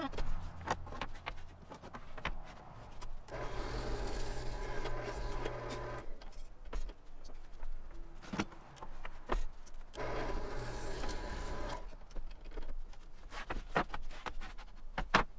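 Benchtop drill press running and boring through a wooden beam, in two spells of a few seconds each. Between them come knocks and scrapes as the timber is slid along the bench to the next hole.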